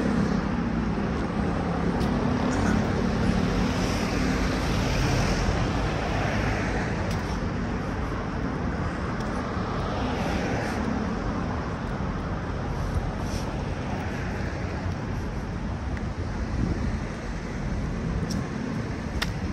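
Street traffic: cars and other motor vehicles passing, their engine and tyre noise swelling and fading as each goes by, over a low engine hum that is strongest near the start.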